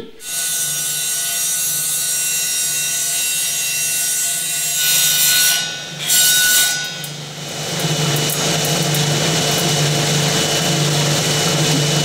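Table saw running with a steady motor hum and whine, its blade cutting into a wooden board twice, about five and six seconds in, to trim the raised lip off it.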